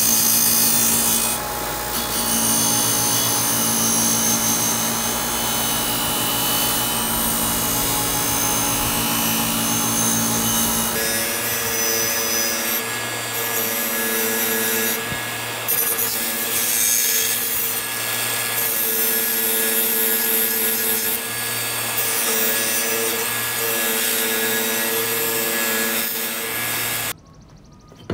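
Handheld electric power tool running steadily while abrading the rusty metal of an old shovel, a motor hum under a scraping grind. Its tone changes about eleven seconds in, and it cuts off a second before the end.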